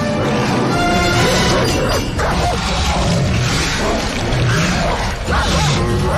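Film fight sound: a German shepherd snarling and barking as it grapples with a growling creature, with a few crashes, over a loud orchestral score.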